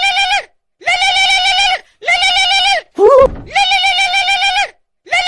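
Novelty phone ringtone playing: a warbling call that wobbles rapidly in pitch, repeated about four times with short breaks, with a brief rising squeak between two of the calls about three seconds in.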